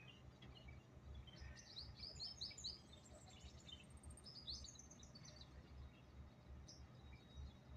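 Faint bird song: a quick run of about five high chirps a couple of seconds in and a shorter burst of chirps near the middle, over a low, steady background noise.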